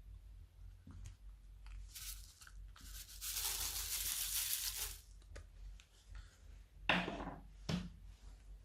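Slime being handled: a rasping, tearing sound that lasts about two seconds, then two short crackling sounds near the end.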